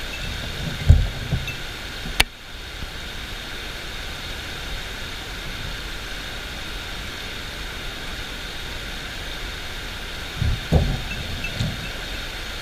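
Shallow mountain-river rapids rushing steadily over stones. A few low bumps about a second in and again near the end, and one sharp click a little after two seconds.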